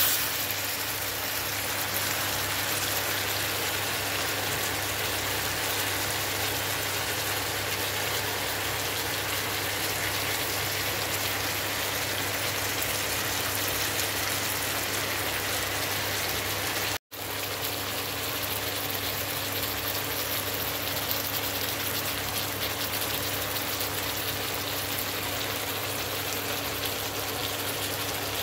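Chicken and string beans sizzling and simmering in adobo sauce in a pan, a steady hiss over a low hum, with a brief cut to silence about 17 seconds in.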